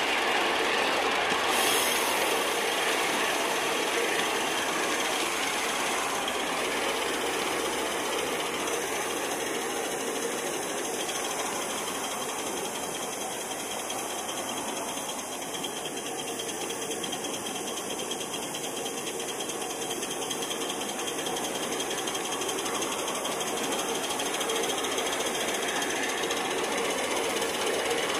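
2.5-inch gauge LBSC Ayesha live steam locomotive running along a miniature railway, with a steady rattle and hiss of wheels and steam picked up close on board.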